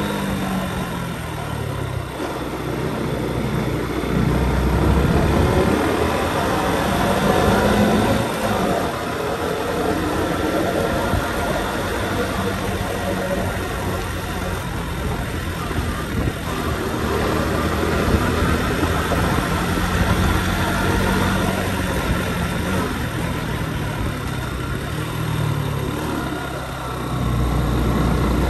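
Motorbike engine running under way, its pitch rising and falling as the throttle opens and closes through the bends, with a steady rush of wind and road noise.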